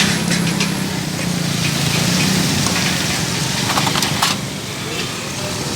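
Liver and masala frying on a flat iron tawa: a steady sizzle with a few sharp clicks, over a low hum of traffic.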